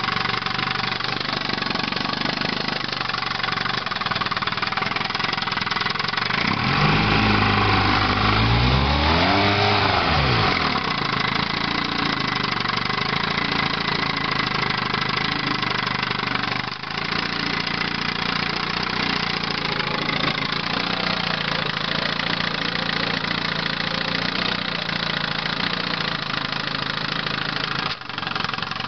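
1958 Evinrude Sportwin 10 hp two-cylinder two-stroke outboard running steadily, revved up once about seven seconds in and eased back down about three seconds later before settling again.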